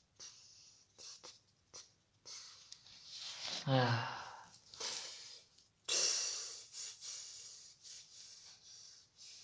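A person gives a short voiced sigh about three and a half seconds in, then a long breathy exhale that starts sharply about six seconds in and fades. Light taps and rustles of a paper puppet being handled on a cushion fall in between.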